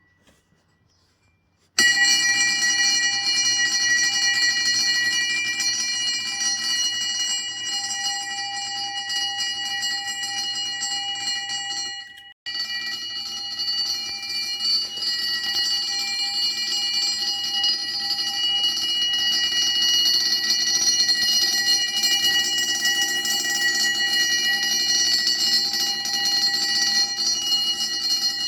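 1960s Gents of Leicester 24-volt brass fire alarm bell ringing continuously, run off an 18-volt battery below its rated voltage. It starts about two seconds in, stops for a moment a little under halfway through, then rings on.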